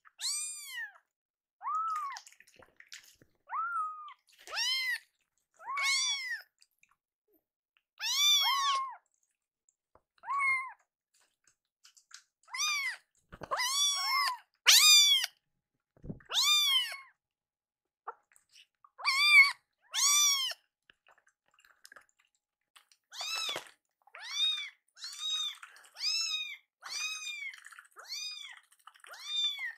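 Hungry kittens meowing over and over: about twenty high, arching meows a second or two apart, coming faster near the end.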